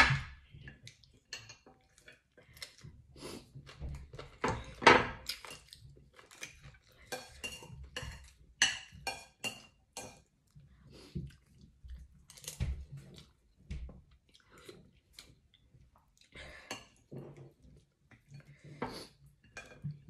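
A drinking glass set down on a table at the start, then a spoon clinking and scraping against a plate in irregular clicks, with chewing.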